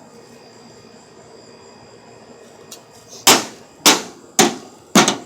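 Four hard metallic clangs about half a second apart, starting about three seconds in: a metal tool striking the casing of a microwave oven.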